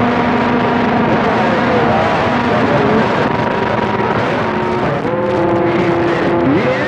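CB radio receiver hiss and static, with several steady whistling tones from other stations' carriers running under the noise. One tone drops out about five seconds in, and another slides up in pitch near the end.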